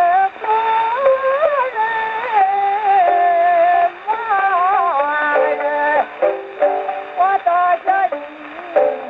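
Acoustic Victrola phonograph playing a 78 rpm record of a Japanese min'yō folk song: geisha singing long, wavering, ornamented vocal lines over plucked-string accompaniment. The sound is thin, with no treble.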